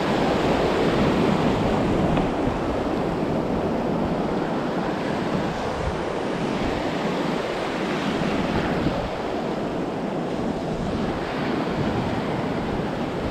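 Ocean surf washing over the shallows and breaking nearby, a steady rushing noise, with wind buffeting the microphone.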